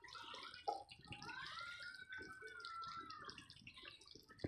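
Pot of soup simmering down on the stove, faint bubbling and crackling as the liquid reduces into the oil. A faint tone rises and then falls through the middle.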